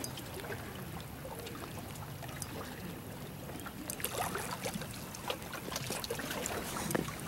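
Shallow water trickling and lapping among rocks, with a scatter of small splashes and sharp ticks starting about four seconds in.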